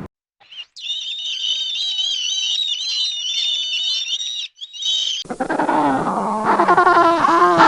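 Animal calls in two clips. First comes about four seconds of high, wavering squeaking or chirping. After a short break, a louder, lower whining call follows, with pitch that bends and slides downward.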